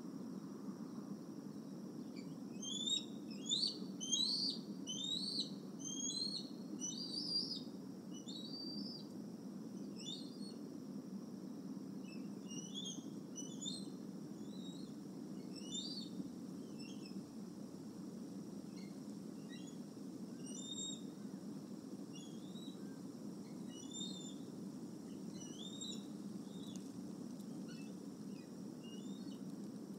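Bald eagle calling: a series of high, thin chittering notes, a quick loud run a few seconds in, then scattered calls that thin out toward the end.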